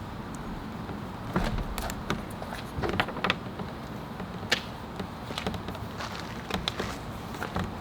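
Irregular clicks and light knocks of car parts being handled during hand work on the car's rear trim.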